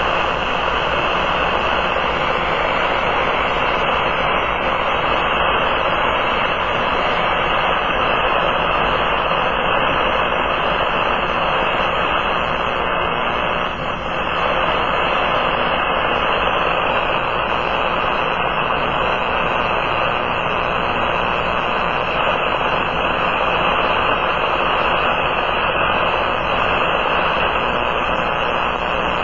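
Powerline noise received by a Kenwood TS-480 HF transceiver in AM mode on the 20-metre band (14.225 MHz): a loud, steady static, dipping briefly about halfway through. It is radio-frequency interference from nearby power lines, raising the noise on a band that should be quiet.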